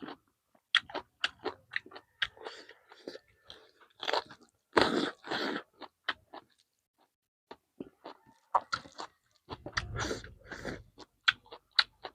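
Close-up mouth sounds of someone eating chicken: irregular chewing and biting with short wet clicks and smacks, denser and louder around the middle and again near the end.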